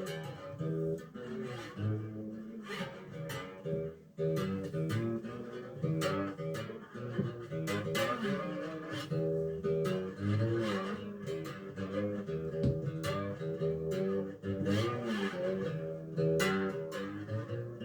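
Diddley bow amplified through a piezo pickup embedded in its box lid, played as a continuous run of plucked notes, some of them sliding in pitch.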